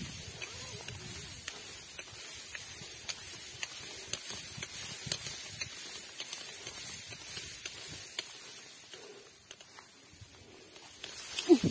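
Footsteps and rustling along a muddy path, with a steady hiss and scattered light clicks from a handheld phone. A brief pitched voice-like sound comes just before the end.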